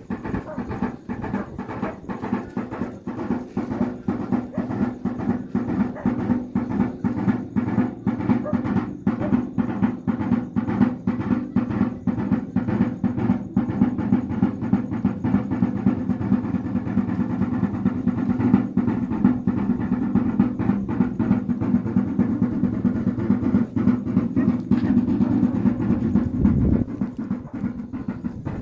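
Kasha, the Wayuu double-headed drum, beaten in a fast, steady beat to accompany the yonna dance.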